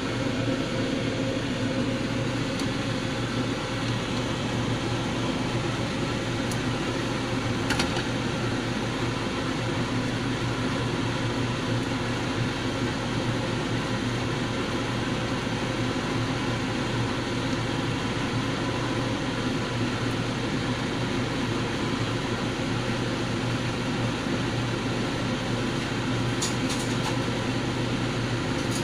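Steady mechanical hum with a hiss, like a fan or running kitchen appliance, unchanging throughout, with a few light clicks about eight seconds in and again near the end.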